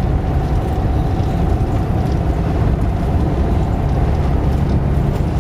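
1989 Talbot Express motorhome's 2-litre petrol engine and road noise heard from inside the cab while driving, a steady loud rumble with a faint constant whine.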